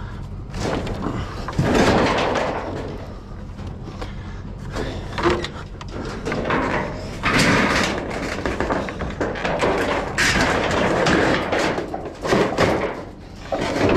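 Scrap metal being handled and thrown, a string of irregular bangs and clattering crashes.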